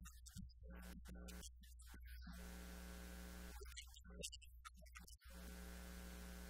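Faint electrical mains hum, with a buzzing overtone that cuts in and out several times; no speech is heard.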